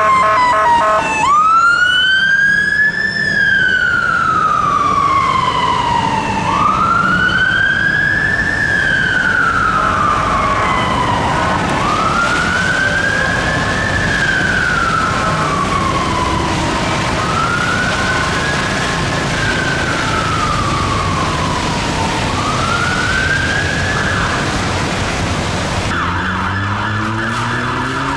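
London Fire Brigade fire engine's Whelen electronic siren on a slow wail, rising over about two seconds and falling over about three, repeating roughly every five and a half seconds over traffic noise. Near the end it switches abruptly to a different, fast-warbling siren tone.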